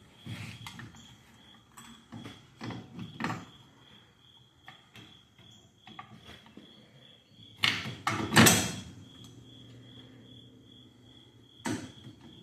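Scattered metal knocks and clatters of hand tools and bolts being worked on a car's rear wheel hub, the loudest two close together about two-thirds through and another near the end. A steady pulsing cricket trill runs underneath.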